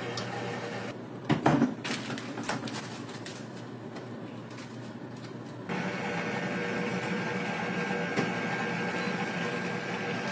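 Indoor room tone with a few sharp knocks about a second and a half in. From about halfway, a steady mechanical hum with a faint high whine runs on.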